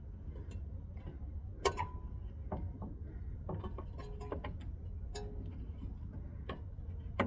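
Metal tools and steering parts being handled: light, irregular metallic clicks and clinks, a dozen or so, some ringing briefly, over a steady low hum.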